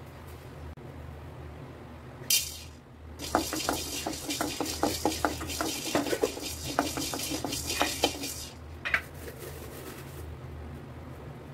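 Wooden spatula stirring black peppercorns in a dry aluminium kadai: the peppercorns rattle and click against the metal over a scraping hiss for about five seconds in the middle. A short scrape comes just before the stirring starts and another just after it stops, with a steady low hum underneath.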